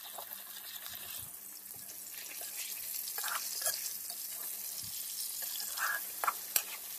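Whole fish slow-frying in mustard oil in an aluminium wok: a soft, steady sizzle with scattered small crackles, and a few sharper clicks in the second half.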